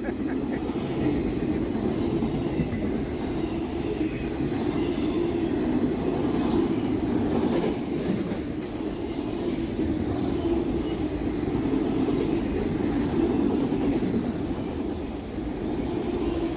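Empty auto-rack freight cars of a CSX train rolling past, a steady rumble of steel wheels on rail.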